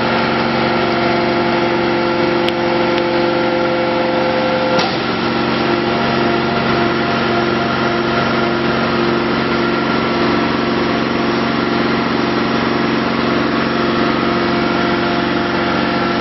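Rebar end upset forging machine running with a steady, loud machine hum made of several tones. About five seconds in there is a short click, and one of the tones stops there.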